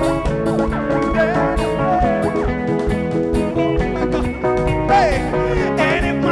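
Live praise band playing an instrumental passage: a lead guitar bending and sliding notes over sustained keyboard chords, bass and drums.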